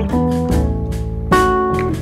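Background music: a guitar playing plucked notes that ring and fade.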